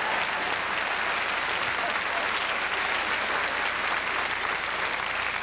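Theatre audience applauding steadily and laughing in response to a comedian's joke.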